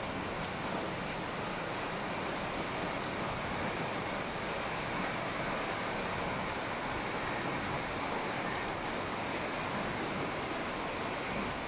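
Steady rushing of a flash flood: muddy floodwater torrenting down a street in an even, unbroken wash of noise.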